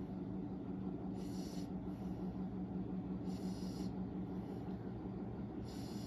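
Soft breathing close to the microphone, a short hiss of breath about every two seconds, over a low steady hum.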